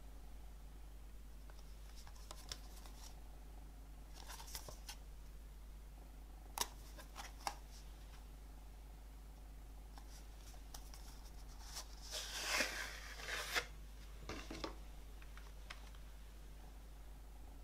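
Handling of a CD in a cardboard sleeve and plastic jewel case: scattered soft clicks and taps, then a longer scraping rustle about twelve seconds in, the loudest part.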